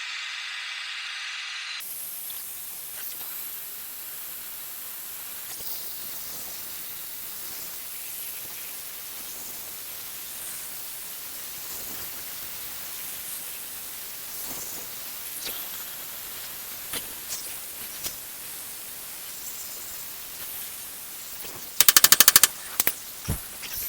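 MAPP gas and oxygen torch flame hissing steadily while heating a rusted-in bolt in a cast shock absorber mount. The hiss changes about two seconds in. Near the end comes a quick rattle of sharp knocks lasting about half a second, followed by two single knocks.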